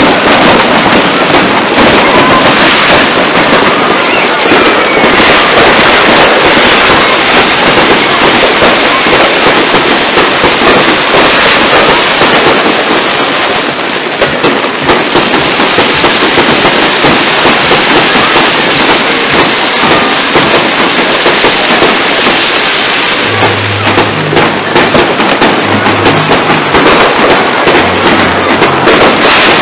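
Fireworks going off without a break: a dense, loud crackling and banging of many bursts, with low music notes joining about three quarters of the way in.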